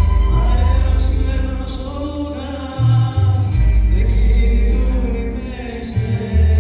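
Music: held, gliding singing voices over a deep, sustained bass line that changes note every second or two.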